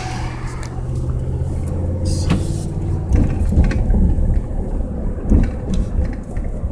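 Car running and rolling at low speed, heard from inside the cabin as a steady low hum of engine and tyres, with a few knocks and clicks from about three seconds in.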